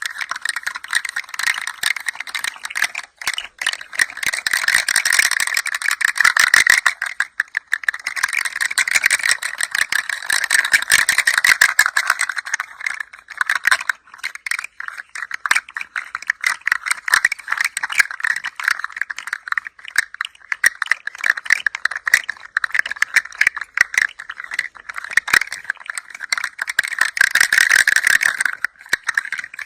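A hand-held toy rattling as it is gently moved, a dense stream of fine clicks that swells and eases, with short lulls about 7 and 14 seconds in.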